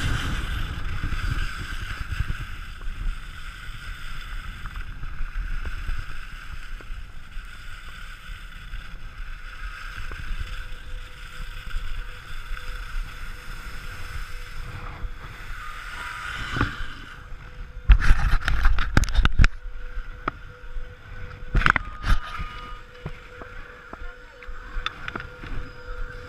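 Wind rushing over a body-mounted action camera and skis hissing over soft spring snow during a downhill run. About eighteen seconds in the run ends in a cluster of loud scrapes and knocks from skis and poles, with a few more a few seconds later, and a faint steady hum sets in.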